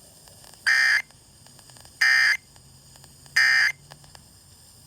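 Emergency Alert System end-of-message code: three identical short bursts of SAME digital data tones, each about a third of a second long and evenly spaced a little over a second apart, signalling the end of the alert.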